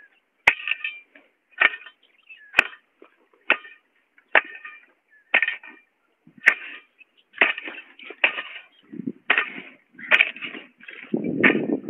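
Rhythmic crunching of dry cut grass and weeds, one crisp stroke about every second. A low rumble swells in near the end.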